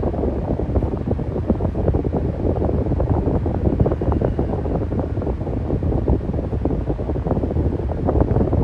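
Electric fan running steadily: a low rush of air, fluttering where the airflow buffets the microphone.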